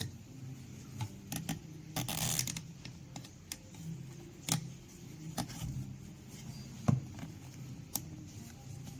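Scattered small clicks and knocks of macerator pump parts being handled during a micro switch replacement, with a short scraping sound about two seconds in and one sharper knock near the end.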